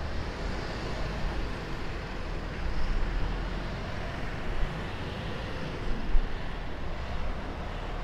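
Outdoor background noise: a steady rumble of distant road traffic and wind on the microphone, with a few brief gusts. No clear siren tone stands out.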